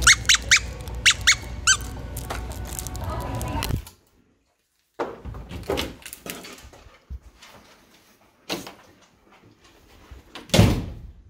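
Plush mallard-duck squeaker dog toy squeezed by hand, squeaking about six times in quick succession. Later come scattered knocks and one loud thump near the end.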